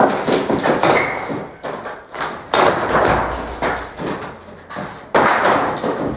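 Repeated heavy thuds and knocks, several sudden hits spaced a second or more apart, each dying away briefly.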